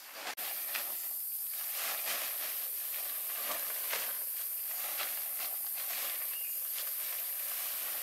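Camouflage tarp with a plastic underside rustling and crinkling in short bursts as it is unfolded and shaken out, over a steady high-pitched insect drone that cuts in suddenly just after the start.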